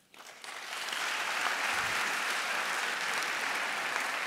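Audience applauding, swelling over about the first second and then holding steady.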